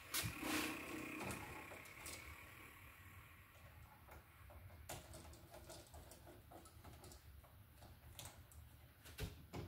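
Screwdriver tightening the copper-wire terminal screws on a wall light switch: a quiet run of small clicks and scrapes of metal on metal, with a few sharper clicks near the start and near the end.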